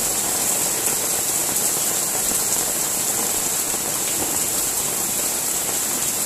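Heavy downpour falling on a street: a steady, dense hiss of rain that stays even throughout.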